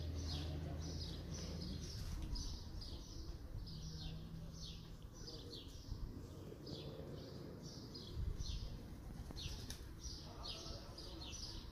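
Sparrows chirping in a run of short, high cheeps, a few every second, over a low hum; there is a low thump about eight seconds in.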